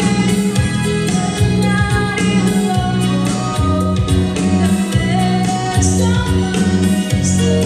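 A song with singing over a steady beat and a strong bass line.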